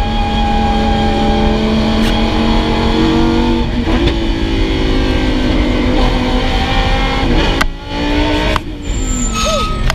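Lamborghini Huracán's V10 heard from inside the cabin, pulling hard on track. The engine note breaks around four seconds in and again near eight seconds, where it drops away briefly as the car lifts and changes gear.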